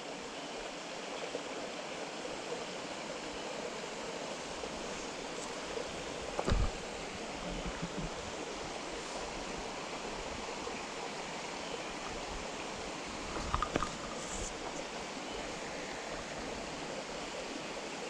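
Small forest mountain stream running over rocks, a steady rush of water. Two soft, low thumps break in, about six and about fourteen seconds in.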